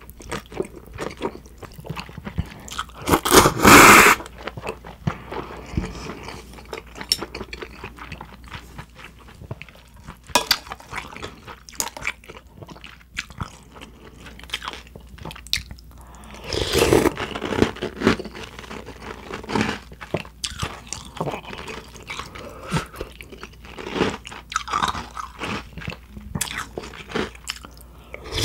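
Close-miked eating of spicy cold naengmyeon noodles: wet chewing and crunching throughout, with two longer, louder stretches of noodle slurping about three seconds in and again around seventeen seconds.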